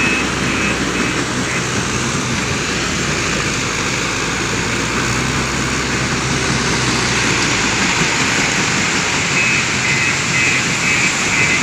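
JCB 530-70 telehandler's diesel engine running as it raises its boom and tips its loader bucket, with crushed stone pouring into a dump truck's body about two-thirds of the way through. A reversing alarm beeps at the start and again near the end.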